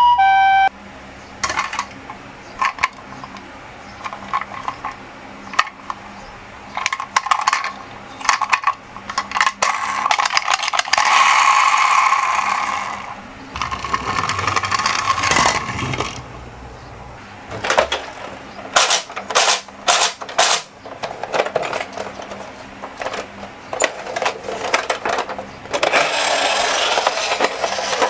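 Toy minicars, an ambulance and a bus, rolling and clattering down a slope track: irregular clicks, rattles and clacks of small wheels and bodies, with a stretch of steadier rolling noise around the middle. A two-tone siren cuts off just under a second in.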